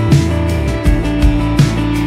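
Background music with a steady beat and plucked guitar.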